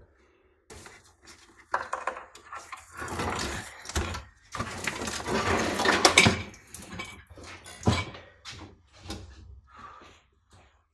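Irregular clatter, rustling and light knocks of a car's wiring harness and its plugs being handled and pulled about, in bursts with short pauses.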